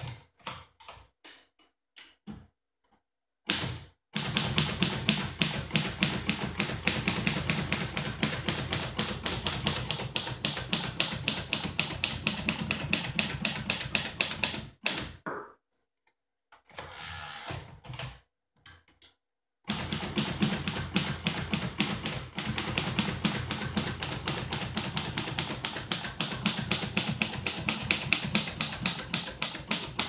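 Fast typing on a 1949 Royal Quiet De Luxe manual typewriter: a few scattered key strikes, then a long quick run of typebar clacks, a short break about halfway with a brief rattle, then another long run.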